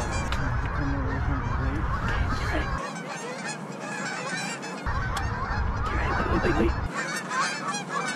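A large flock of Canada geese honking as it flies in, many overlapping calls.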